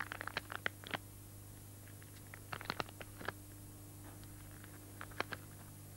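Paper stickers being peeled off their backing sheet and pressed onto paper by hand: short crackles and clicks in three brief clusters, near the start, in the middle and near the end.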